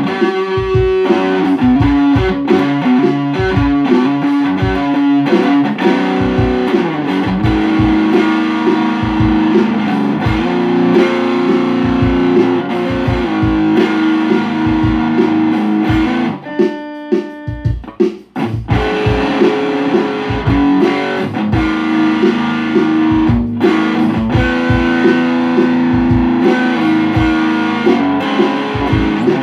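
Electric guitar playing melodic phrases and chords over a steady low beat. About sixteen seconds in the beat drops away for a couple of seconds, leaving a single held guitar chord, before the playing picks up again.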